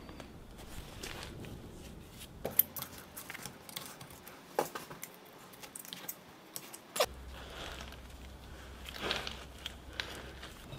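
Quiet hand-handling of a magnetic chuck's steel parts during disassembly: scattered light metal clicks and knocks, the sharpest three about two seconds apart, among soft rustling.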